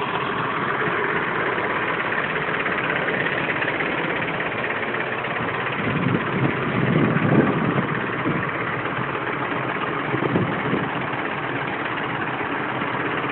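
A motor vehicle's engine idling steadily, with a louder wavering stretch about halfway through.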